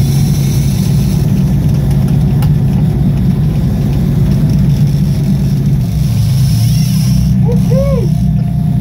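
A sport-fishing boat's engine running steadily under way, a loud low hum, with wind and water noise. A brief squeal rises and falls near the end.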